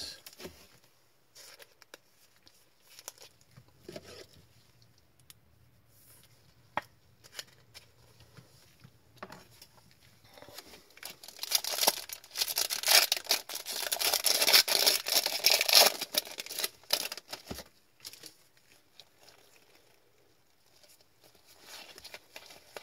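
Foil wrapper of a hockey card pack being torn open and crinkled, loud for about five seconds around the middle. Before and after it there are faint clicks and rustles of cards being handled.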